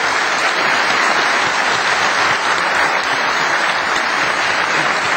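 Steady applause from a seated assembly of several dozen people clapping together after a speech has ended.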